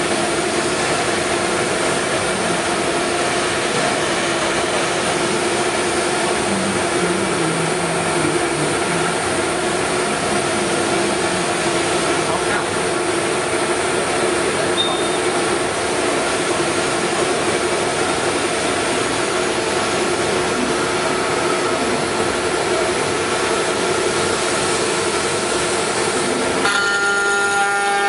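5-axis CNC router running and machining: a steady, dense machine noise with a hum of steady tones from the spindle. Near the end the sound changes abruptly to a stronger set of steady pitched tones.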